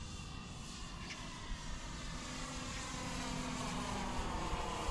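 Motor and propeller of a radio-controlled Seagull Models Cessna 208 Grand Caravan scale model running as the model flies past overhead. The sound grows louder, and its pitch slides down near the end as it passes.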